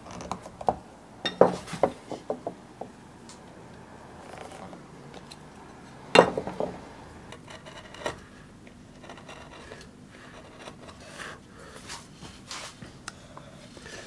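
Hand carving tools cutting and scraping walnut wood: irregular sharp clicks and snaps as the chisel and knife take off small chips, with a louder knock about six seconds in.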